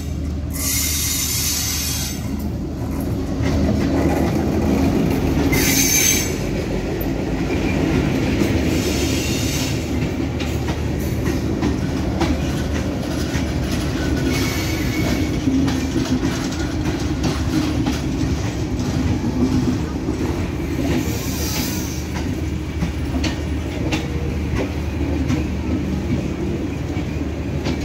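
Diesel-hauled intercity express train rolling slowly past on a curve: a steady low rumble of the locomotive and coach wheels on the rails. Short high-pitched wheel squeals come a few times.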